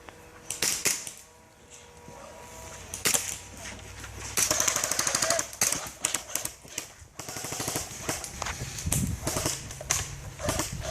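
Airsoft guns firing in a skirmish: a few single shots, then long rapid full-auto bursts, one starting about four seconds in and another near eight seconds.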